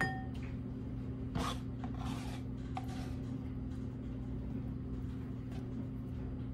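A light metallic clink with a brief ring, then a few soft scattered handling sounds as pieces of cooked beef roast are picked up by hand and put into a dish, over a steady low hum.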